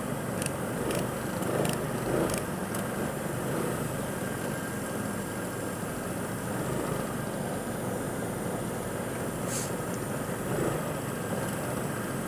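Go-kart engines running steadily, with a few sharp clicks in the first few seconds and a brief hiss near the end.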